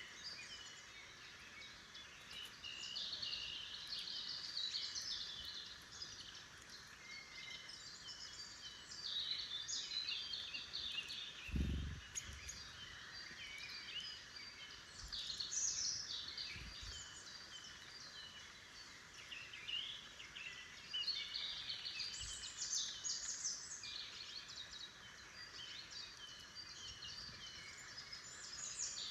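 Wild forest songbirds singing and calling, many high chirps and trills overlapping throughout, with one brief low thump about midway.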